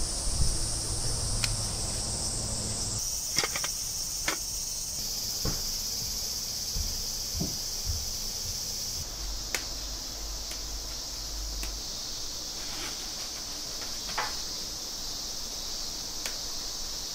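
Insects, crickets or similar, chirring steadily in a high, continuous band, with a few light clicks scattered through.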